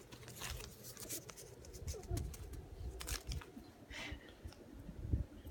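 Kittens pawing at paper dollar bills, giving scattered crinkles and rustles with soft bumps.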